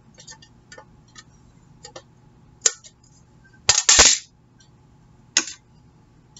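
Scissors snipping excess washi tape along the edge of a hard plastic CD jewel case, with clicks of the plastic case being handled. There are a few sharp snips and clicks, the loudest cluster about four seconds in.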